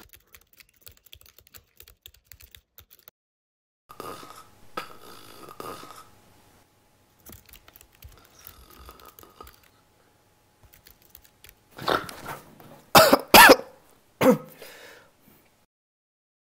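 A person coughing, a few loud short coughs about twelve seconds in, after some faint scattered noises.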